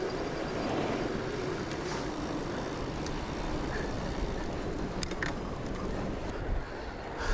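Steady rushing riding noise from a fat bike ridden fast on a trail, with a couple of sharp clicks about five seconds in.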